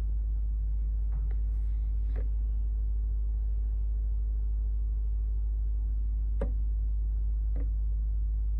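A steady low hum, with about four faint light taps scattered through it.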